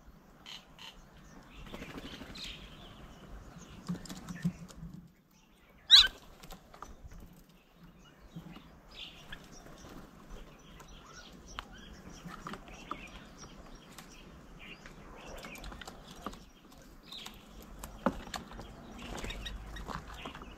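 Birds at a feeding table: scattered chirps, light taps and wing flutters, with one loud, sharp sound about six seconds in.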